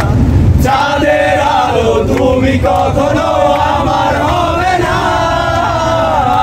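A group of young men chanting and singing together at full voice inside a moving bus, with the bus's low engine and road rumble underneath.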